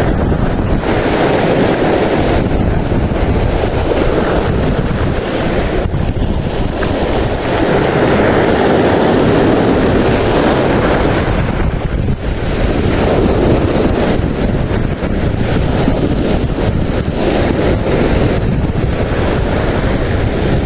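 Wind buffeting the microphone over the rush of sea waves, a steady noise that swells and eases, with a brief dip about twelve seconds in.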